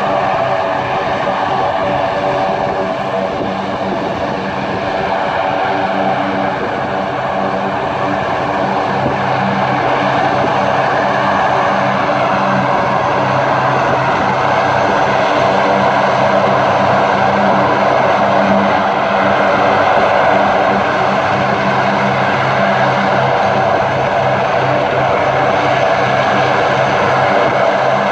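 Four turboprop engines of a RAAF C-130 Hercules running as it taxis along the runway before take-off: a loud, steady propeller drone made of several held tones, growing a little louder about halfway through.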